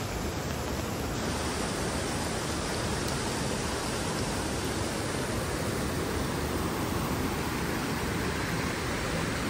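Steady rush of running water from a stream or waterfall in a rocky gorge, a little louder from about a second in.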